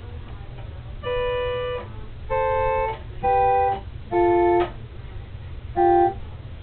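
Electronic keyboard playing five held two-note chords one after another, each about half a second long with short gaps between them, the notes stepping down in pitch.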